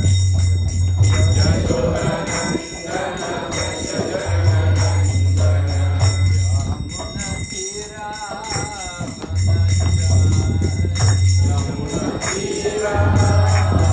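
Devotional music: bells jingling in a fast steady rhythm over singing voices, with a deep low hum that swells in and drops out every few seconds.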